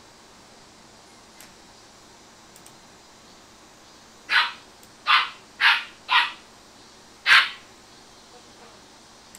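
A dog barking five short, sharp barks: four in quick succession about half a second apart, then one more, the loudest, about a second later.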